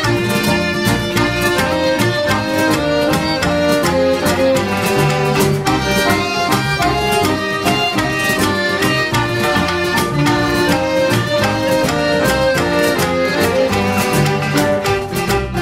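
Instrumental folk music led by a fiddle, over a steady rhythmic accompaniment.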